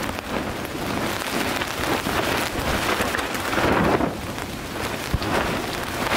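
Heavy rain beating on a backpacking tent and its loose tarp in strong wind. The wind swells in a gust about three to four seconds in, and there is a single sharp knock about five seconds in. The wind has pulled the tarp's poles out, so rain is striking the tent directly.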